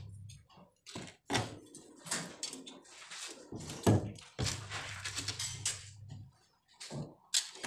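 Hand tools being handled on wooden formwork and steel rebar: scattered knocks, clicks and scrapes, with sharper taps about a second and a half, four seconds and seven seconds in.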